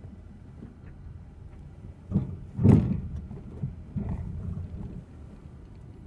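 Steady low engine and road rumble inside a moving car's cabin, with a few knocks and a loud thump about two and a half seconds in.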